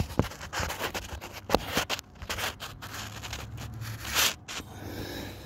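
Irregular scraping and rustling handling noise with sharp clicks. The loudest burst of scraping comes about four seconds in, over a faint low steady hum.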